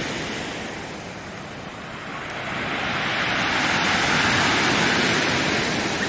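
Heavy storm surf breaking and washing up a pebble beach. The rush of water builds to its loudest about four seconds in, then eases.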